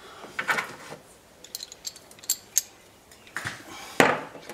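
Handling of a harness crotch belt and its metal fittings: rustling and rubbing, a few light metallic clinks about halfway through, and a sharp knock near the end.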